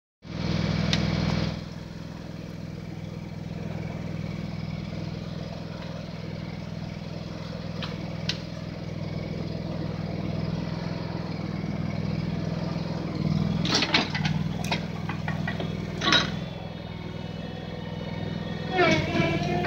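Backhoe engine running steadily, louder for the first second and a half, with a few sharp knocks about two thirds of the way in and the engine note rising near the end as it is throttled up.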